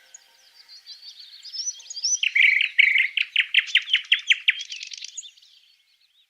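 Songbird singing: high chirps, then a loud, fast series of repeated notes about two seconds in, fading out near the end.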